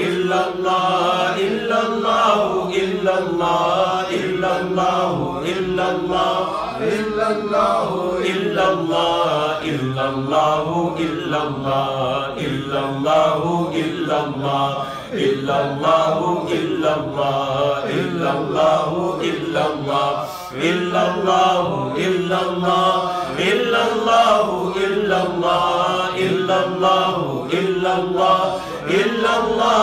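A man chanting an Islamic devotional recitation into a microphone, in a continuous melodic line whose pitch rises and falls.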